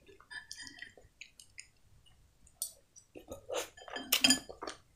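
Metal spoon clinking lightly against a glass bowl of soup, with soft chewing; scattered small clinks at first, then a louder cluster a little past the middle.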